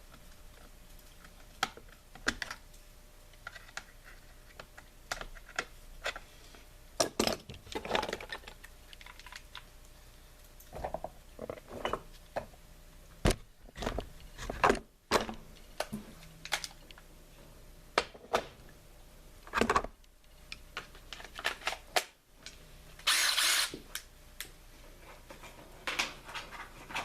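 Hand tools and chainsaw parts being handled on a workbench: scattered clicks, taps and knocks at irregular intervals, with a short scraping rasp about two-thirds of the way through.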